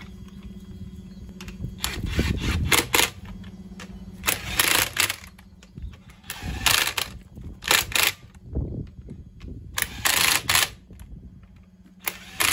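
Cordless impact wrench running in and hammering up a car's wheel bolts in a series of short bursts, about six of them a couple of seconds apart, each under a second long.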